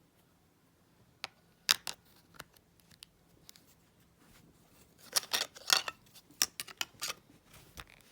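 Sharp clicks and taps of handling, a few scattered in the first half and a quick run of them between about five and seven seconds in; no ringtone is playing.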